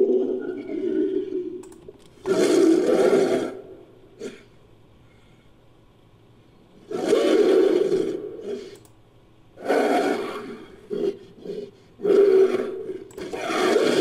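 Monster sound effect for the Genderuwo, an ape-like creature, mixed from King Kong and stock monster roars: a series of deep, throaty roars and growls with a pause of a few seconds in the middle and short grunts before the last long roars.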